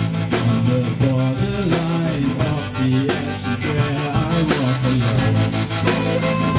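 Live rock band playing: a drum kit keeping a steady beat of about three strikes a second under electric guitar and bass guitar, with a singer's voice over the top.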